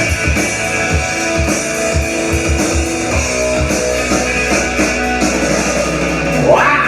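Rock music without singing: electric guitar and drum kit playing over a steady low end, with a note sliding sharply up in pitch near the end.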